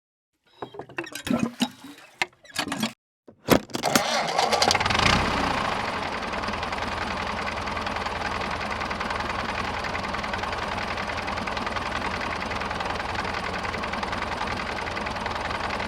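A few scattered clicks and knocks, then a small motor starts about four seconds in and runs steadily.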